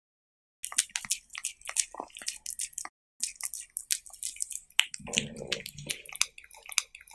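Close-miked cat eating raw meat: rapid wet licking and chewing clicks in two runs, with a brief pause about three seconds in.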